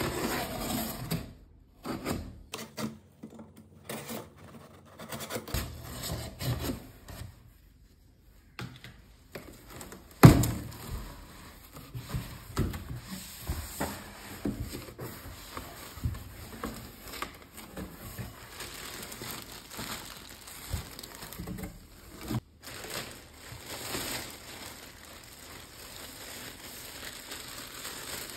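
Unboxing handling: packing tape and cardboard flaps of a shipping box scraping and rustling as the box is opened, then the clear plastic wrapping around a punching bag and boxing gloves crinkling as they are lifted out. A sharp knock about ten seconds in is the loudest sound.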